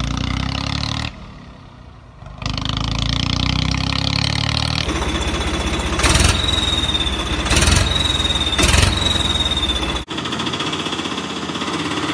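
Motor engine running, in segments that change abruptly as if cut together. It drops away briefly about a second in, then comes back. In the middle a high, steady whine sounds along with three loud knocks.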